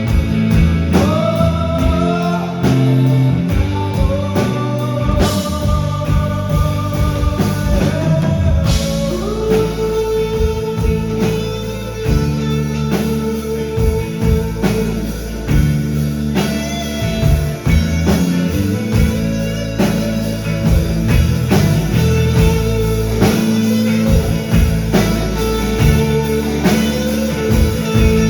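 A live rock band playing, with drums keeping a steady beat, guitars and a sung melody line.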